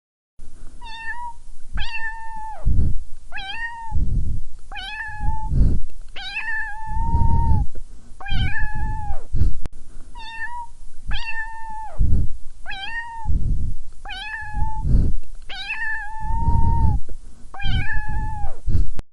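A domestic cat meowing over and over: about a dozen similar, drawn-out meows in a steady string, with a low rumble after many of them.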